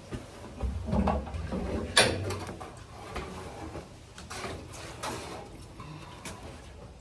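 Metal knocks and scraping as a tractor's fuel tank is worked free of whatever it is hooked on, with the sharpest knock about two seconds in and a low rumble around it.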